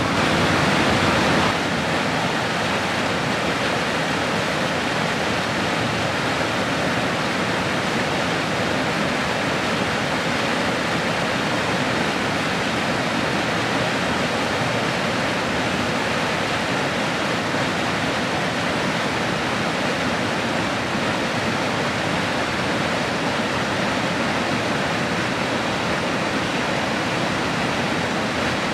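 Mountain creek tumbling over small rock cascades: a steady rush of water, a little louder for the first second and a half.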